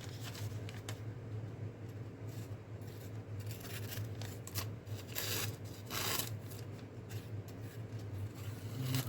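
Pocketknife blade being tried for sharpness: a few short rasping cutting strokes, the strongest about five and six seconds in, over a steady low hum. The blade is dull enough to need stropping.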